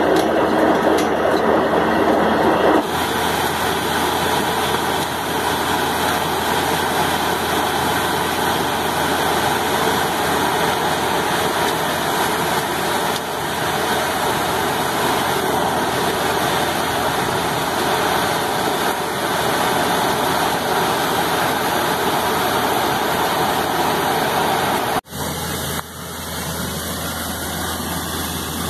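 Borewell drilling rig running steadily while muddy water and slurry flush up out of the bore. The sound breaks off for an instant about 25 s in and continues a little quieter.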